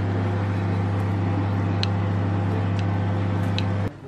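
A steady low electrical or machine hum with a few faint clicks. It cuts off suddenly near the end.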